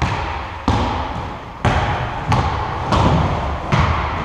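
A basketball being dribbled on a hard gym floor: six bounces, each trailing off in the hall's echo.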